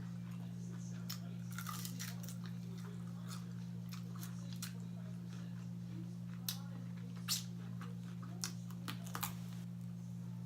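A person eating close to the microphone: crisp bites, crunching and chewing of fried food, sharpest in the second half, over a steady low hum.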